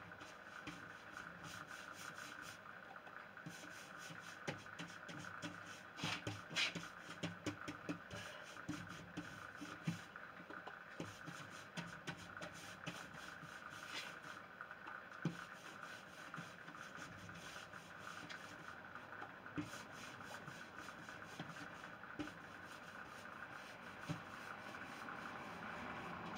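Paste wax being rubbed into stripped pine door panels with a small hand pad: a soft, continuous scrubbing with scattered light knocks and ticks.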